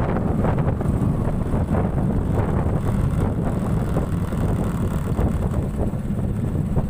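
Wind buffeting the microphone of a vehicle moving along a road, a steady low rumble with the vehicle's engine and road noise underneath.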